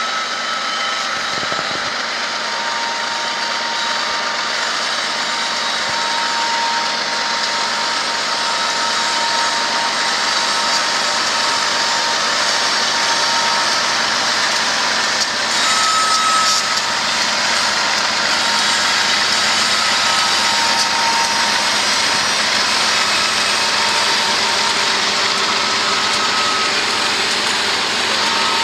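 BNSF diesel locomotives leading a freight train passing close by: engines running and wheels on rail in a steady loud noise that grows slowly louder, with a faint high whine.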